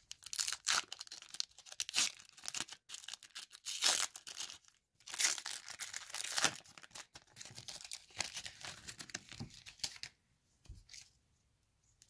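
Plastic wrapper of a baseball card pack being torn open and crinkled by hand: repeated crackling rips and crinkles that stop near the end.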